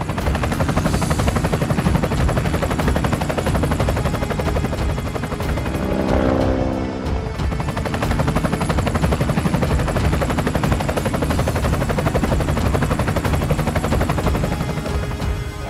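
Helicopter rotor sound: a steady, rapid chopping that runs without a break, with a short pitched tone about six seconds in.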